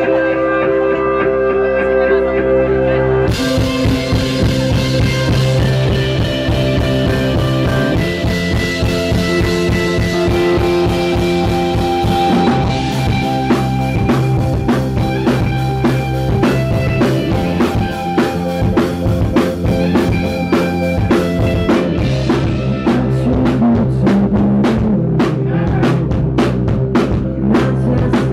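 Live band playing an instrumental passage: sustained electric guitar and Dave Smith Mopho x4 synthesizer chords, with a drum kit coming in about three seconds in and keeping a steady beat. The audience recording is distorted from overload.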